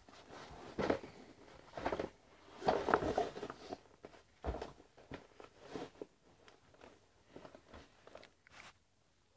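Rustling and soft irregular thumps of a child moving about on a carpeted floor close to the microphone, growing fainter and sparser after about six seconds as she moves away.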